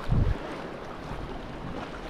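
Choppy sea water lapping and splashing around a sea kayak's hull, with wind noise on the microphone. A brief low thump comes just after the start.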